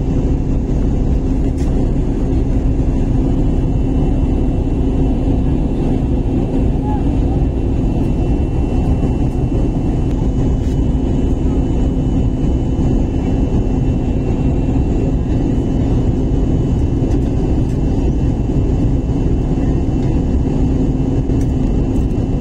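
Airliner cabin noise on descent: a constant, loud roar of engines and rushing air with a steady hum running through it.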